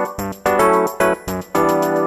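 Background music led by a keyboard, sounding like electric piano, playing short chords in a steady rhythm.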